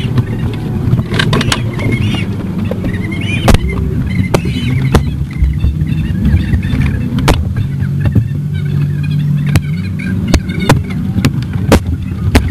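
Steady low mechanical hum, like vehicles and machinery running at a car wash, with many sharp clicks and knocks scattered through it.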